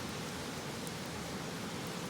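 Steady rush of river water running, with one faint crackle from the campfire about a second in.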